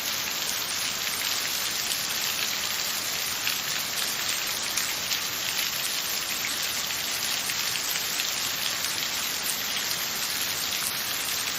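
Steady rain falling on a surface, a dense even hiss of many drops with fine patter and no letting up.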